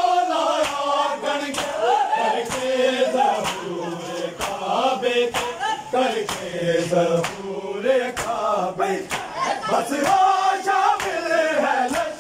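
A group of men chanting a Shia noha (mourning lament) together in unison. Sharp slaps of matam, hands striking bare chests, keep time at roughly two a second.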